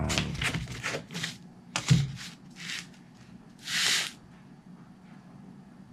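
Handling noise from EPP foam strips and a steel ruler on a cutting mat: a run of short rustles and scrapes, then a knock just before two seconds in. Near four seconds a craft knife draws through the foam along the ruler with a short hiss.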